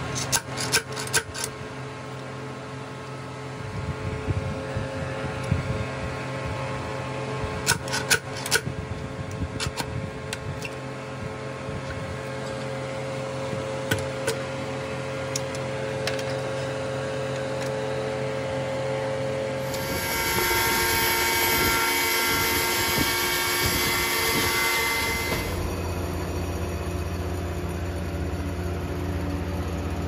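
Sawmill machinery running with a steady hum, while a metal bar knocks and scrapes against the loose bark of a cedar log in short clusters near the start and about 8 seconds in. From about 20 to 25 seconds a louder, hissier stretch of machine noise takes over, then a deeper steady hum.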